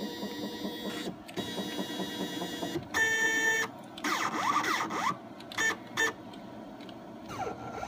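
Stepper motors of a CNC-converted X2 mini mill whining in short spells as the table is jogged along its axes. The pitch is steady while a move runs and sweeps up and down between moves.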